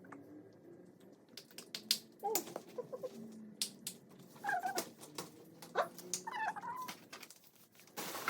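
Several short, high-pitched rising-and-falling cries or squeals, scattered among sharp clicks and taps.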